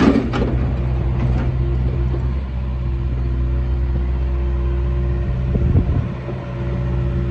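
Hitachi ZX48U-5A mini excavator's diesel engine running steadily while the machine slews and works its boom and arm, with a brief loud burst of noise right at the start and a short dip in loudness about six seconds in.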